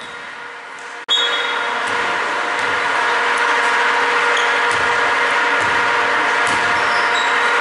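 Steady mechanical hum with several held tones, coming on abruptly about a second in after a brief dropout in the sound. A few faint short squeaks and clicks sit over it.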